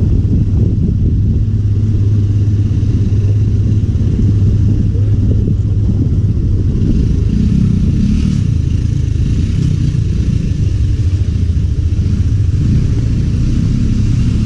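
An engine running steadily under way, a constant low drone without pauses or changes in speed.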